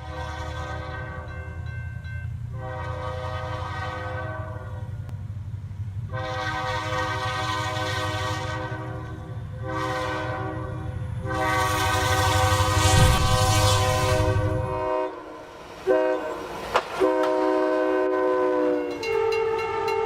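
Locomotive air horn sounding a series of long chord blasts over the rumble of a moving train. The rumble cuts off about three-quarters of the way through, and the last blast bends slightly down in pitch.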